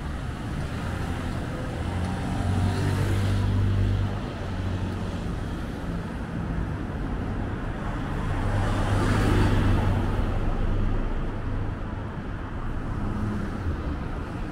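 City road traffic: a steady hum of cars, with two vehicles driving past, one around two to four seconds in and a louder one around nine seconds in.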